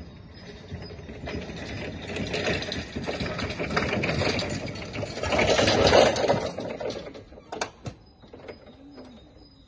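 Hyster E2.0XN electric forklift driving over brick paving as it approaches and passes close: its electric drive whirring and its wheels rumbling on the pavers, rising to the loudest point about six seconds in and then fading. Two sharp clicks follow shortly after the peak.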